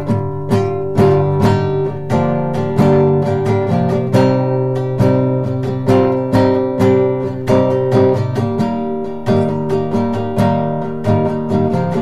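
Solo guitar played freestyle: a steady run of strummed and picked chords, about two to three strokes a second, each ringing out before the next.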